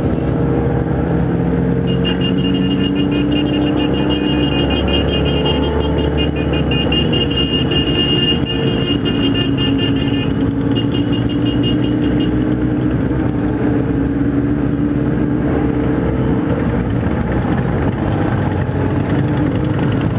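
Many motorcycle engines running at low speed in a slow-moving group ride. The nearest is the rider's own Kawasaki Z1000 inline-four. A high pulsing tone sounds from about two seconds in until about twelve seconds in.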